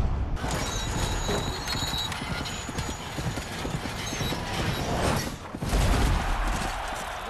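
Armoured warhorses galloping, a dense run of hoofbeats, then a heavy thud about six seconds in as an armoured rider is thrown from his horse.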